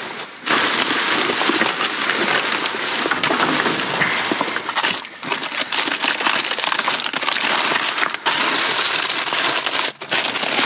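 Plastic bags and food packaging rustling and crinkling loudly and continuously as discarded groceries are rummaged through, with a few brief pauses.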